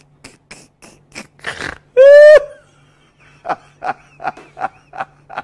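A man laughing hard in short wheezy pulses, with a loud high squeal of laughter about two seconds in, then a rapid run of laughs about four a second.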